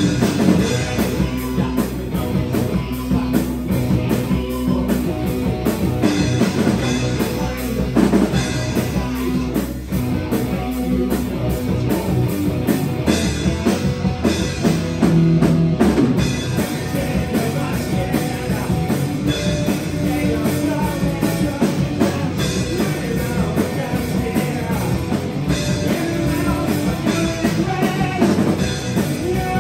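Live rock band playing a song, with electric bass, electric guitar and drum kit, and a singer over it.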